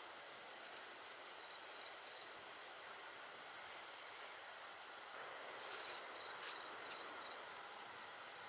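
Night-time insect chorus, a steady high trill of crickets. Over it come short, evenly spaced chirps: three a little after a second in, then a run of five about six seconds in.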